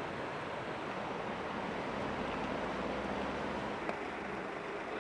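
Steady rushing of a swollen river in flood, with one brief click about four seconds in.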